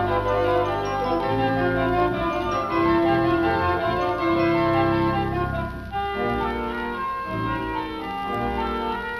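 A 4/21 Wurlitzer theatre organ playing a selection of popular songs, with held chords under a melody, from a 1937 78rpm record transfer. About six seconds in it drops to a softer, thinner passage.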